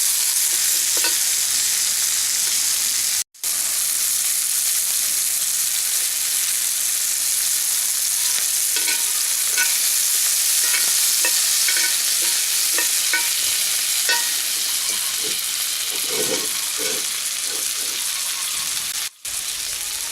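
Meat sizzling steadily in a hot cast iron pan. In the second half a utensil scrapes and clinks against the pan as the meat is stirred. The sound cuts out briefly twice.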